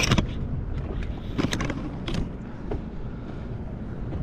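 Wind buffeting the microphone as a steady low rumble, with a few sharp clicks and knocks: one at the start, then others about a second and a half, two seconds and nearly three seconds in.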